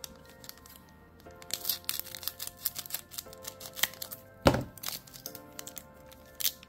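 Scissors snipping the tops off a stack of Japanese Pokémon booster packs: a run of short crisp snips with crinkling of the pack wrappers, the loudest snap about four and a half seconds in.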